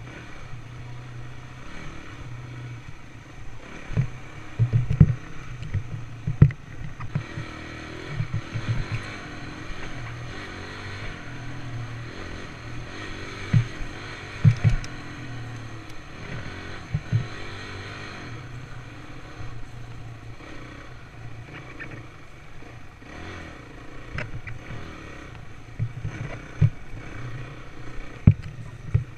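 Dirt bike engine running as the bike is ridden along a rough dirt trail, the throttle opening and easing off. A few loud thumps break in, around 4 to 6 seconds in, about halfway, and near the end.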